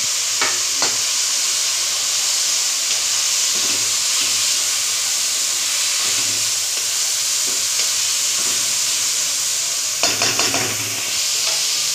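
Diced chicken and carrots frying in oil in a wok, stirred with a spatula: a steady, loud sizzling hiss, with a couple of clicks right at the start and a short burst of spatula scraping and clatter against the pan near the end.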